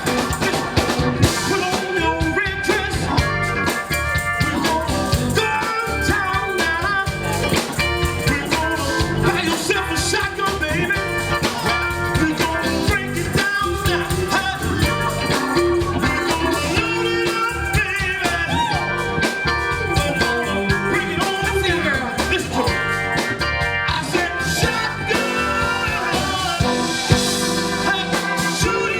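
Live band music: electric guitar and other instruments over a steady drum and bass beat.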